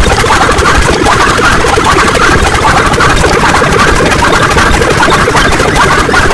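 A loud, unbroken wall of noise from many sound clips played over one another at once, blurred so densely that no single voice or effect stands out.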